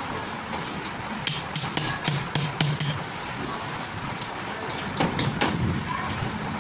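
Sharp taps and clicks of a tool on metal during a bag-wheel repair: a quick cluster of about seven taps between one and three seconds in, and a few more about five seconds in.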